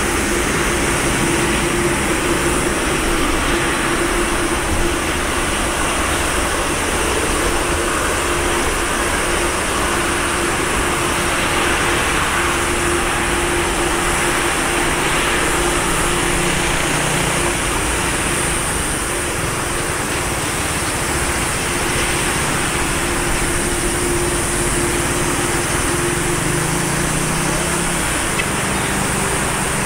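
Boeing 777-200ER's two Rolls-Royce Trent 892 turbofans running at idle thrust while the airliner taxis and turns to line up for takeoff: a steady jet whine and hiss with a constant low hum.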